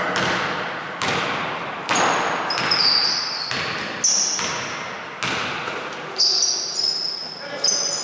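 A basketball bounced on a hardwood gym floor, about eight irregular bounces roughly a second apart, each echoing in the large hall. Short high squeaks of sneakers on the court come in between.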